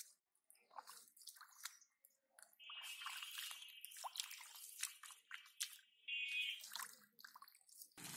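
Hands squelching and splashing in shallow muddy water: scattered short wet slaps and clicks. A steady high-pitched buzzing tone runs for about four seconds in the middle.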